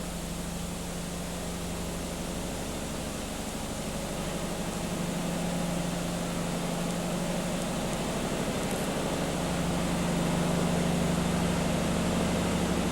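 Steady machinery hum, with a constant low drone and even hiss, slowly getting a little louder.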